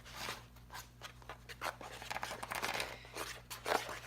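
Faint, irregular scraping and rustling strokes from the slime mixture being handled and stirred.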